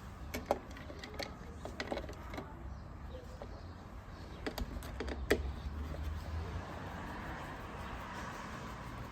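Scattered light clicks and taps of small hard parts being handled, as a doorbell mounting bracket and its screws are fitted, with one sharper click about five seconds in. A steady low rumble runs underneath.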